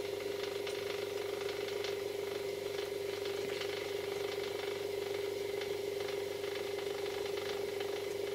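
Electric motor of a restored shop display turntable running at a steady speed, a constant hum with faint irregular ticking.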